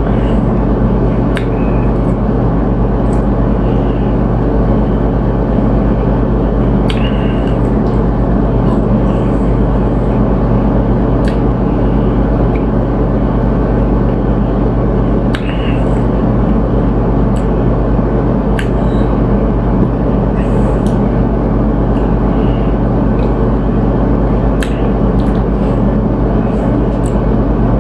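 Steady loud low rumble, like a running vehicle or machine, with scattered sharp clicks.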